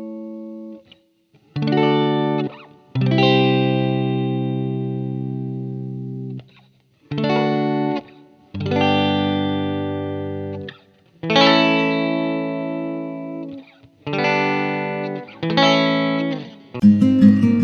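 Background music: electric guitar with effects, chords struck one at a time and left to ring out, with quicker playing starting near the end.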